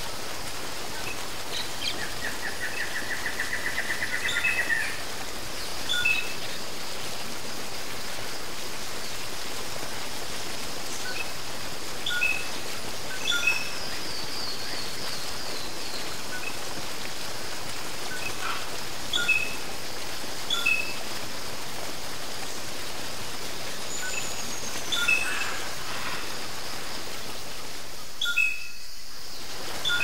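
Steady rush of a flowing stream over rocks, with wild birds calling over it: a rapid trill about two seconds in, short chirps repeated every few seconds, and a falling run of notes around the middle. The water noise dips briefly near the end.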